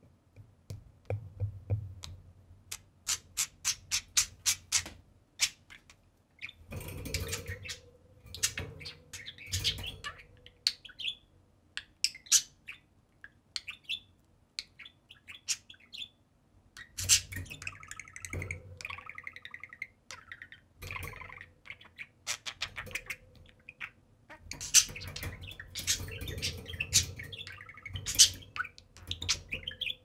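Two budgerigars chirping and warbling in bursts of rapid chatter. A run of quick, sharp clicks fills the first few seconds.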